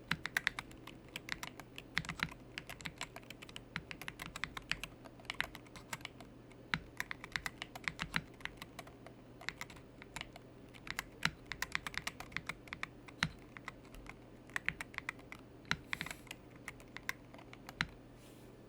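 Typing on a Wooting 60HE+ keyboard with Gateron Magnetic Jade magnetic switches in a custom aluminium case: quick, uneven runs of key clacks with short pauses between bursts.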